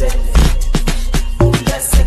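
Amapiano dance music with a heavy deep bass and sharp percussion hits.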